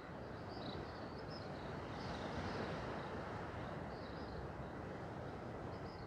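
Outdoor background ambience: a steady low rumble, with short faint high chirps now and then.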